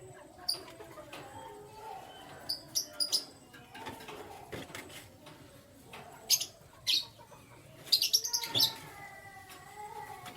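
Canaries chirping: short, sharp high chirps in quick clusters, the loudest near the end, over softer, lower gliding calls.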